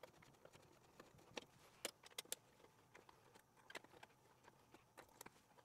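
Near silence with faint, irregular clicks and ticks from hands handling plastic parts and shipping fixings inside a 3D printer's enclosure.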